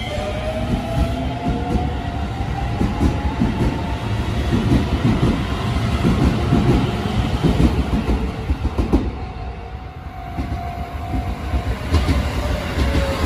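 A Shin-Keisei electric train pulling out: the traction motors whine, rising in pitch as it accelerates. Then the wheels clack rapidly over the rail joints as the cars pass. Near the end a second train's motor whine comes in, falling in pitch as it arrives and slows.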